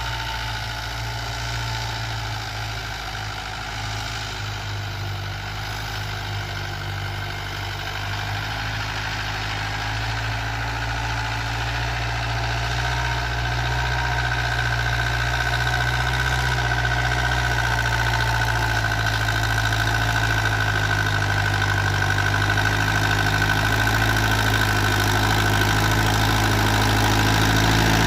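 Mahindra 475 DI tractor's diesel engine running steadily, growing gradually louder through the second half, with a steady whine coming in about halfway.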